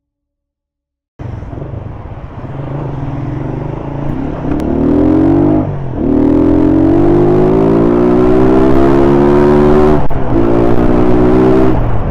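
Small motorcycle engine accelerating through the gears, starting suddenly about a second in; its pitch rises steadily and drops sharply at each of about three gear changes.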